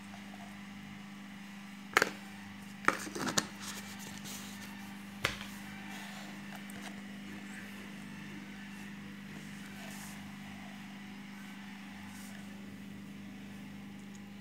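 A metal spoon knocks against a plastic food container holding cut mango: one sharp click about two seconds in, a quick cluster of clicks about a second later, and one more a little past five seconds. A steady low hum runs underneath.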